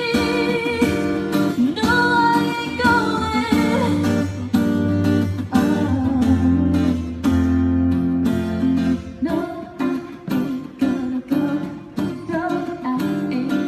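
A singer with vibrato over strummed acoustic guitar. The held, wavering sung notes fall away after about four seconds, and the guitar chords carry on, sparser toward the end.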